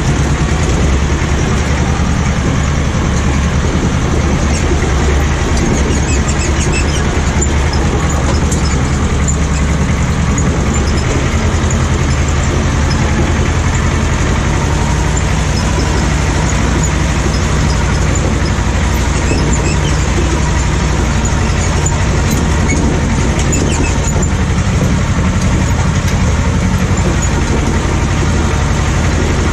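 Ursus C-330M tractor's two-cylinder diesel engine running steadily at an even, unchanging pitch.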